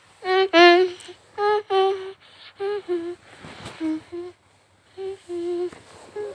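A person humming a slow, simple tune of about a dozen short held notes, mostly in pairs.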